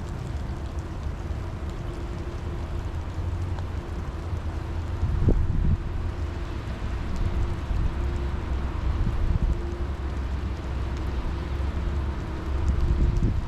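Steady rain falling, under a heavy low rumble with a faint steady hum. A few fine drop ticks sound above it, and the rumble swells about five seconds in.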